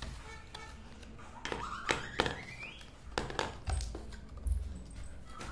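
A plastic cream jar and its thin cardboard box being handled and set down on a concrete floor: a series of light taps and knocks.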